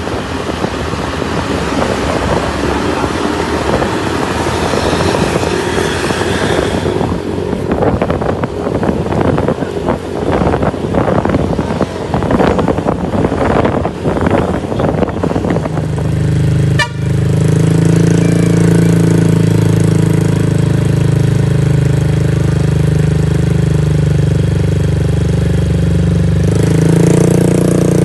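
Road traffic with passing vehicles and horn toots, then from a little past halfway an engine idling steadily.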